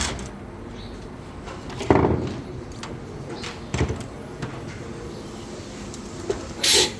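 Workshop handling noise: a couple of knocks, one about two seconds in and another near four seconds, a few light clicks, then a short loud hiss near the end.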